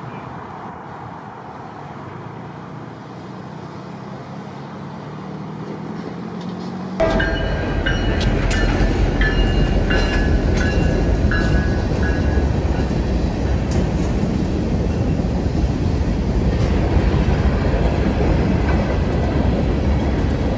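A distant train approaching with a slowly swelling rumble, then about a third of the way in a freight train passing close: a diesel locomotive's heavy rumble followed by freight cars rolling by, with wheel clacks and high squealing tones for a few seconds after it comes in.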